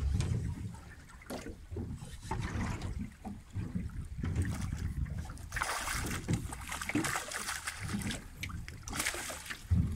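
Water slapping against a small fishing boat's hull under a low rumble, then a hooked fish thrashing and splashing at the surface beside the boat in the second half, in two spells of splashing.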